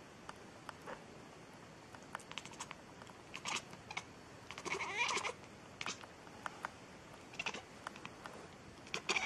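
A cat meowing: several short meows, the longest about five seconds in.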